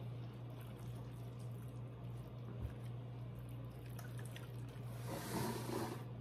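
Hands rubbing and pressing butter over the skin of a raw turkey, soft wet handling sounds with a louder burst of handling noise about five seconds in. A steady low hum runs underneath.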